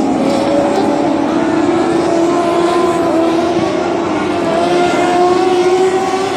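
A pack of dwarf race cars, small stock cars powered by motorcycle engines, running hard on a dirt oval. Several engines at high revs blend into one steady drone, their pitch slowly rising.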